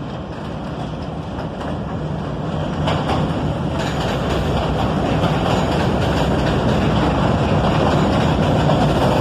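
Trains on an elevated steel structure: a passenger subway train running past close by while a yellow diesel work locomotive hauling retired R32 subway cars approaches, wheels clattering over the rails. A steady low hum comes in about three seconds in, and the whole grows louder throughout.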